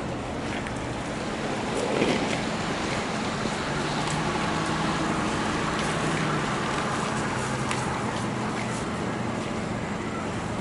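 Street traffic noise: a steady wash with a vehicle engine humming low through the middle, and a few faint ticks.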